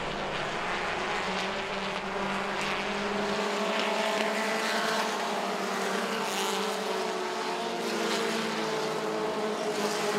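Super truck racing engines running at speed as the trucks lap the oval, a steady engine drone with no break.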